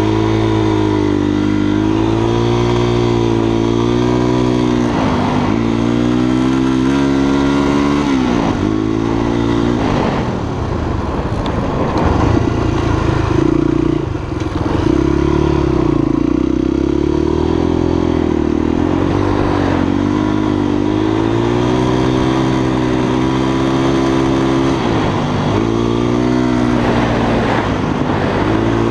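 Honda XLR 250 enduro motorcycle's single-cylinder four-stroke engine running under way. Its pitch rises and falls again and again with the throttle, dips briefly about ten seconds in and wavers before picking up again.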